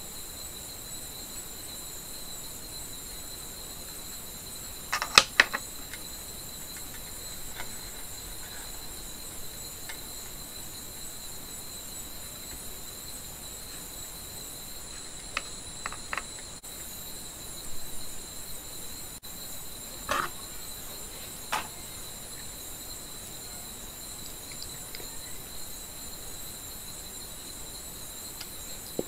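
Small hand tools working on thin insulated wire: a few sharp clicks and snips of pliers and wire strippers, the loudest cluster about five seconds in and more scattered later. A steady high-pitched whine runs underneath.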